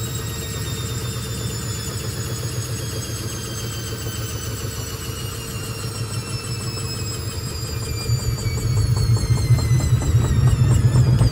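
Hoover VisionTech VTS715D21X washing machine's motor whining and slowly falling in pitch as the drum spins down, over a low rumble from the drum and suspension that grows louder in the last few seconds as the machine shakes.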